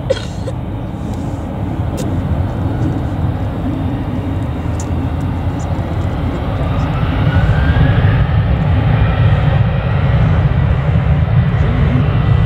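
Jet airliner engines, the rumble growing steadily louder through the second half, with a faint whine that rises in pitch about seven seconds in.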